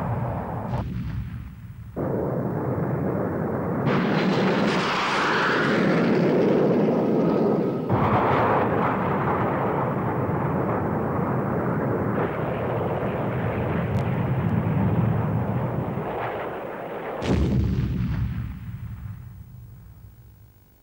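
Jet aircraft noise mixed with explosions, changing abruptly every few seconds. A sudden loud blast near the end fades away.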